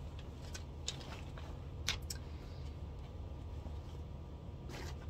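Soft handling sounds of crochet work and yarn: a few faint rustles and light clicks scattered over a low, steady room hum.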